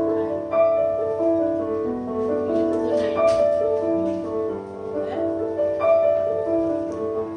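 Electronic keyboard on a piano voice playing a ballad: melody notes over held, sustained chords.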